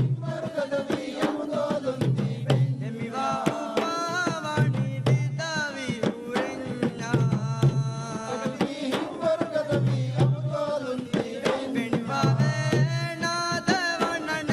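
Group of men singing a chanted song over drums beating a fast, steady rhythm.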